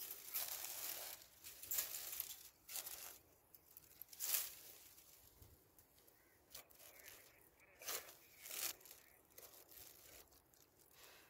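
Dry brush twigs crackling and snapping under boots as a man treads on a pile of cut thorny branches, in irregular crunchy bursts. The loudest crackle comes about four seconds in, with a couple more near eight seconds, then it grows quieter.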